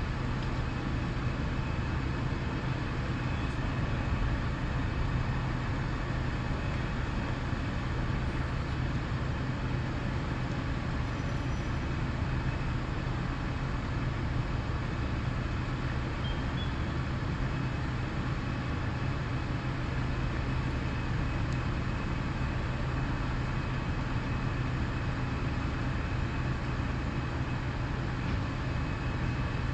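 Steady low rumble of vehicle engines running, with a constant low hum and no breaks or distinct events.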